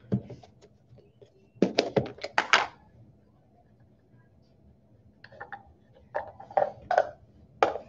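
A snap-on plastic lid is pried off a food-storage tub and set down on a steel counter: a quick run of clicks and knocks. A few seconds later come scattered light clicks of nested plastic measuring cups being handled and pulled apart.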